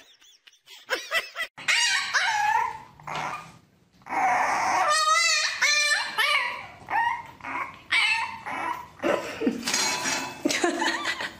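Puppies whining and yipping in a run of short, high-pitched cries that bend up and down, with a brief pause near the middle.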